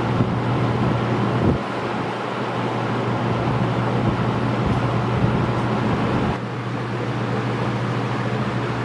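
Early-1980s Torcan 50 cm box fan with five plastic blades running at medium speed: an even rush of air over a steady low hum. A gusty low rumble of air on the microphone drops away about six seconds in.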